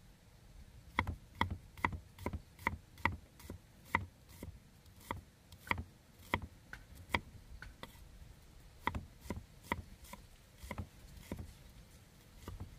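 Cleaver slicing shallots on a round wooden chopping board: the blade knocks sharply on the wood in an uneven run of cuts, about two or three a second, starting about a second in with a short pause partway through.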